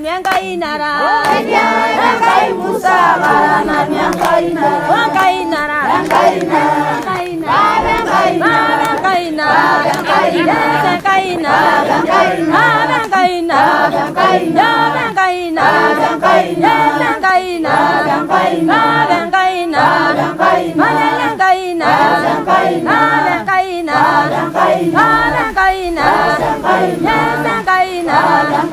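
A choir of voices singing together in a steady, rhythmic song.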